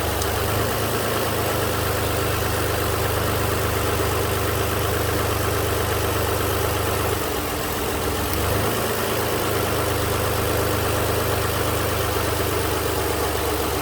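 2008 Toyota RAV4's 3.5-litre V6 idling with a misfire on cylinders 2 and 4. Its low hum dips and changes for a moment about seven seconds in.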